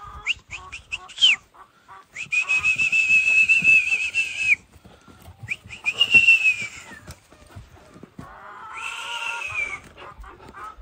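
A person whistling to call dogs. It starts with a few short chirps, then comes a long steady high note, and after it two shorter notes that each fall away at the end.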